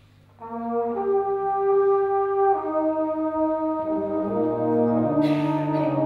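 Brass band playing slow held chords, coming in about half a second in after a short pause, with low brass joining partway through and a brief hiss near the end.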